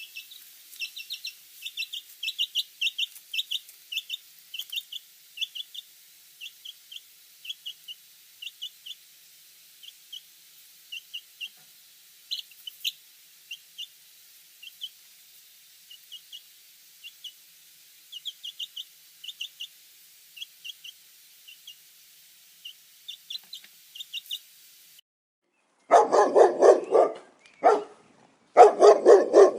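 Small birds chirping in a steady stream of short, high peeps. It cuts off sharply, and near the end a dog barks loudly in quick repeated volleys.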